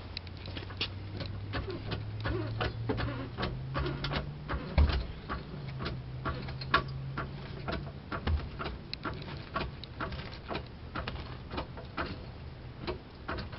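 A car jack being worked to raise the car, giving repeated irregular clicks, a few a second, over a low hum that rises in pitch twice.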